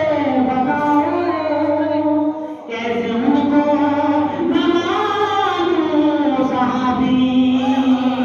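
Devotional verse sung without instruments, in long held notes that slide and bend, with a short pause for breath about two and a half seconds in.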